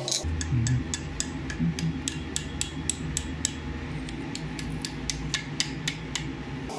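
Light, quick hammer blows on a small piece of hot steel held in tongs on an anvil, an irregular run of sharp metallic taps several a second.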